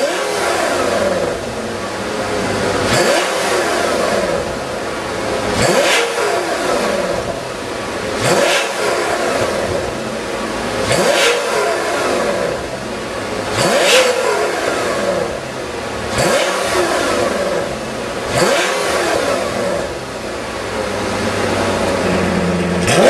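Lamborghini engine through a Kreissieg aftermarket valved exhaust, revving hard again and again: about eight times the pitch climbs, ends in a sharp bark and falls away.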